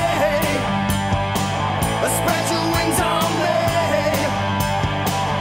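Punk rock song in an instrumental passage: electric guitar, bass and drums playing a steady beat.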